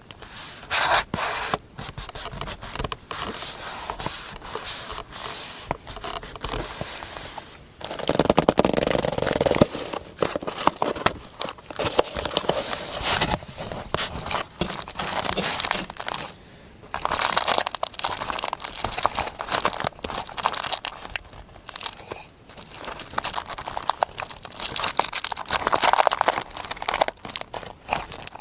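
Paper being handled close up for a scrapbook collage: crinkling, rustling and tearing in uneven bursts of crackly clicks, with brief lulls.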